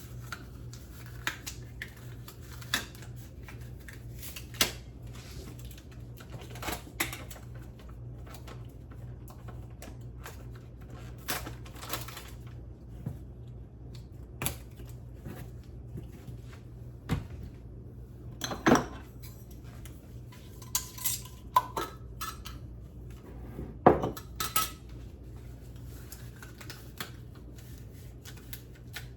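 Intermittent clinks and clatters of dishes, pots and metal utensils being handled, with a few louder knocks later on, over a steady low hum.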